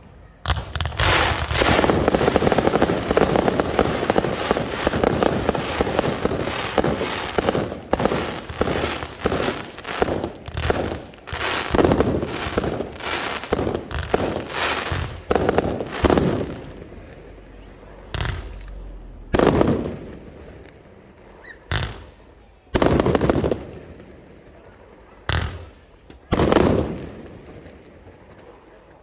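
Fireworks display: a dense, rapid barrage of bangs and crackling for about fifteen seconds, followed by single loud bursts a second or a few seconds apart.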